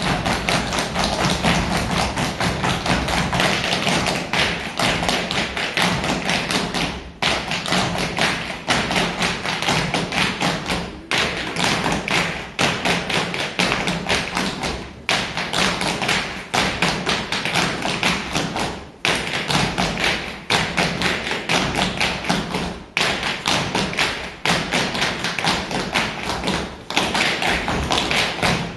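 Many dancers' shoes tapping and stamping on a stage floor in a fast unison rhythm over percussive music, breaking off briefly about every four seconds.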